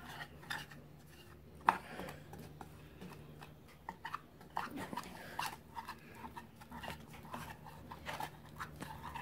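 Wooden stick stirring a thick filler paste of fine sanding dust and wood sealer in a small cup: irregular soft scraping and clicking, over a low steady hum.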